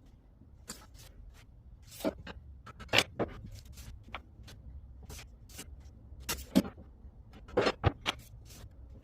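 Irregular clicks and knocks of objects being handled, over a low steady hum. The loudest knocks come about three seconds in and then a cluster between six and eight seconds.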